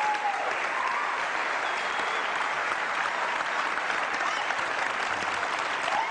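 Studio audience applauding steadily, with a few drawn-out cheers rising above the clapping.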